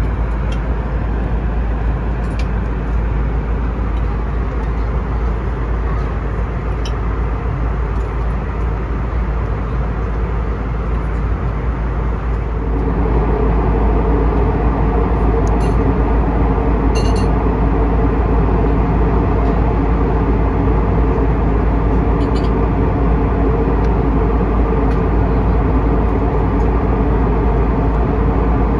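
Steady cabin noise of an Airbus A321neo in flight: a continuous rush of airflow and engine drone. About 13 seconds in it steps up a little louder, with a steady hum of several tones on top, and there are a few faint clicks.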